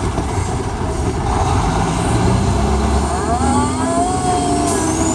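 Fire truck engine and drivetrain running on the road, heard from inside the cab, a heavy steady rumble. From about three seconds in, a whine rises in pitch as the truck pulls.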